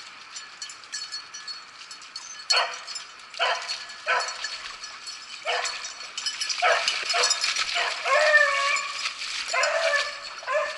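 Beagles baying: a run of short, separate bays starting about two and a half seconds in, with one longer drawn-out bay about eight seconds in. The hounds are giving voice on a rabbit's trail.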